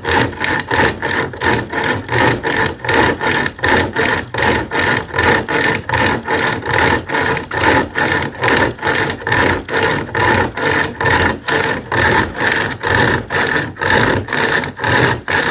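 SOG pocket chainsaw, a hand-pulled chain saw, being drawn back and forth through wood in a fast, even rhythm of about three strokes a second. It is cutting well.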